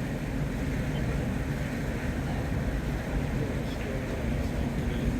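Steady low rumble of the cruise ship Serenade of the Seas manoeuvring slowly to dock, mixed with wind on the microphone.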